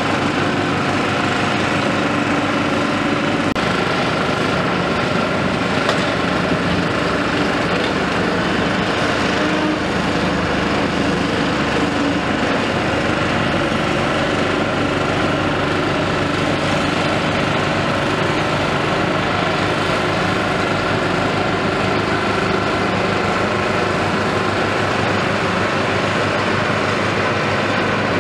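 Caterpillar 329E hydraulic excavator's diesel engine running steadily under working load as it digs and swings sand, with a steady high hydraulic whine over the engine.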